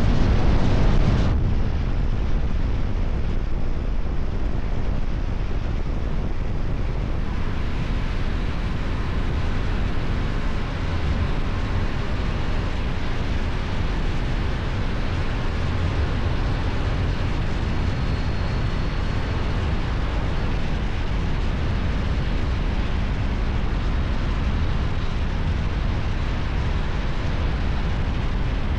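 Kove 625X Adventure motorcycle riding on its stock exhaust, engine running under wind rush on the microphone. It is louder for about the first second, then settles into a steady run.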